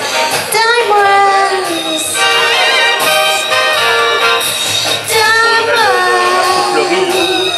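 A woman singing into a handheld microphone over backing music, holding long notes that slide in pitch.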